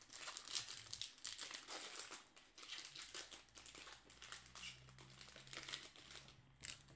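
Foil wrapper of a 2016 Bowman baseball card pack being torn open and crinkled by hand: a dense run of crackles, busiest in the first three seconds and thinning out toward the end.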